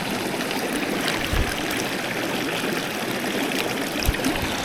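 Small mountain stream babbling steadily over rocks, with a couple of dull bumps, about a second in and near the end.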